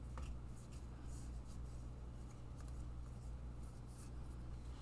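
Sports trading cards being handled and slid against one another: faint, scattered scraping and rustling of card stock, over a steady low hum.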